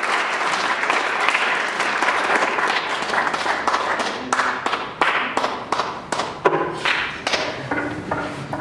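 Small audience applauding: dense clapping that thins out over the second half to a scattering of separate claps.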